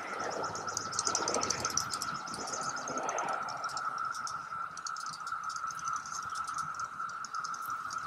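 Periodical cicada (Magicicada) chorus as a steady drone, with many quick, sharp clicks like popping corn: female Magicicada flicking their wings in courtship. The recording is noise-reduced, which makes it thinner and quieter.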